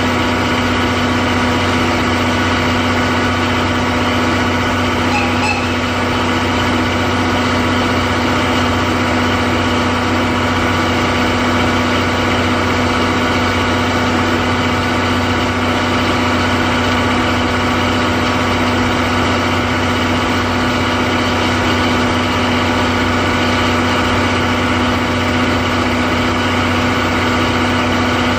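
Underfloor DMF15HZ-G diesel generator engine of a 14-series Suhafu 14 passenger car, running at a constant speed with a steady hum. It is generating the train's service power for air conditioning and lighting.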